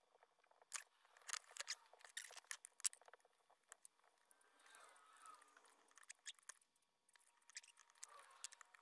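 Faint, irregular clicks and light ticking of small chainsaw parts being handled and fitted by hand on a Husqvarna 365 saw, clustered in the first few seconds and again near the end.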